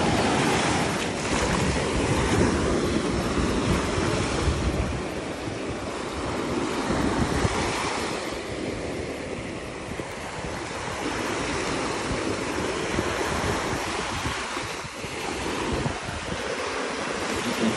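Small surf waves washing onto a sandy shore, with wind buffeting the microphone.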